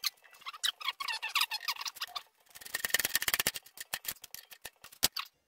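Hand tools clicking against the alternator's metal adjusting strap and bracket as it is bolted back on, with a quick run of ratchet-like clicks near the middle.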